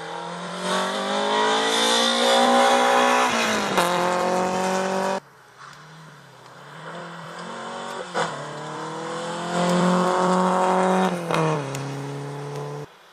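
Rally car engines accelerating hard on a stage. The engine note climbs, dips at a gear change and breaks off suddenly about five seconds in. A second run climbs the same way with a few sharp cracks and cuts off near the end.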